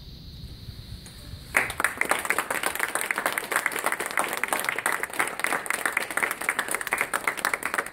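Audience applauding, breaking out about a second and a half in after a short pause at the end of a cello and double bass piece.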